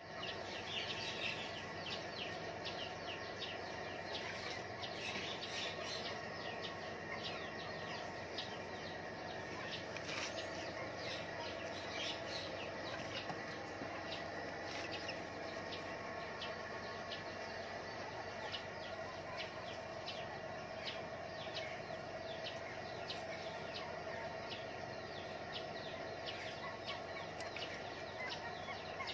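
Outdoor ambience of birds chirping and calling again and again, over a steady background hum.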